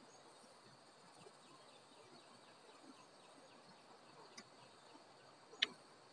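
Faint rural ambience with a steady high insect drone and a few soft ticks, broken by a single sharp click near the end.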